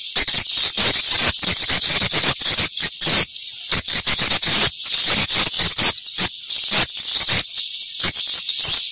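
Swiftlet calls: a dense, continuous stream of rapid high chirping twitters.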